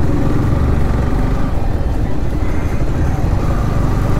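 A sport motorcycle's engine runs steadily while it is ridden along a road, heard from the rider's seat as a loud, continuous low rumble mixed with road noise.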